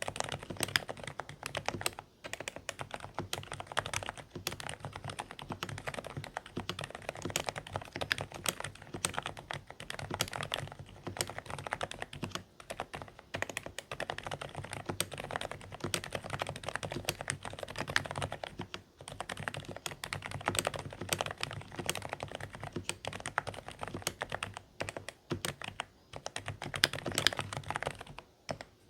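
Continuous fast typing on a Dareu A104 Pro mechanical keyboard with silent beige switches: quiet, slightly muffled keystrokes in an irregular, unbroken patter. The typing stops right at the end.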